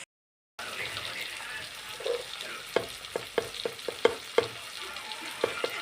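Chicken sizzling as it fries in a pan while being stirred, with a steady hiss and about a dozen sharp knocks of the spoon against the pan in the second half. The sound cuts in after a brief gap at the start.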